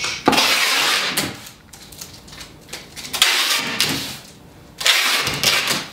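Packing tape being pulled off a handheld tape gun to seal a cardboard box: three long, loud rasping pulls with short pauses between.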